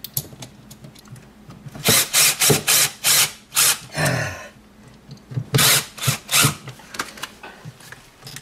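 Cordless drill/driver running in short trigger bursts, driving the mounting screws of a duplex electrical outlet into a plastic wall box. There is a quick run of bursts about two seconds in and three more about five and a half seconds in.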